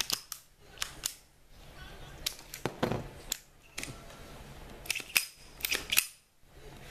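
Sharp metallic clicks and clacks from a Ruger SR22 .22 pistol's slide being racked back by hand and let snap forward, several times over, after reassembly.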